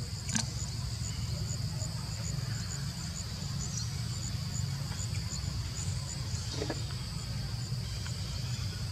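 Insects chirping: a steady high buzz with a regular, rapidly pulsing chirp above it, over a constant low rumble. A couple of faint clicks are heard, about half a second in and again near two-thirds of the way through.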